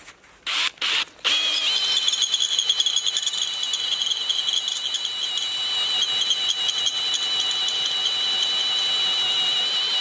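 Electric drill boring through steel plate with a freshly sharpened twist bit. The trigger is blipped twice, then about a second in the drill runs continuously under load with a high steady whine until it stops near the end. The sharpened bit is cutting well, throwing off large curled chips.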